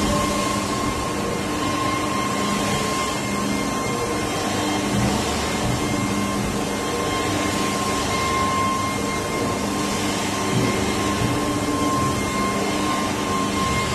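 Steady mechanical hum of hydraulic cutting-press machinery running in a factory workshop, with a steady mid-pitched whine over a broad, even noise and no distinct cutting strokes.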